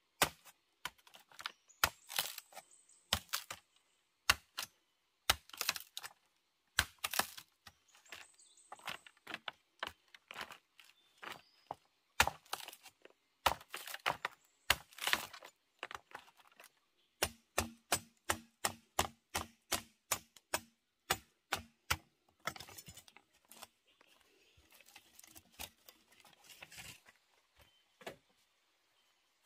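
Sharp cracking knocks of a machete striking and splitting a bamboo tube, irregular at first, then a quick even run of blows a little past the middle.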